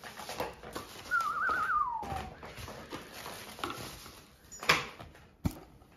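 A short warbling whistle, about a second long, trilling quickly and then gliding down in pitch. Later a sharp knock, the loudest sound, is followed by a smaller click.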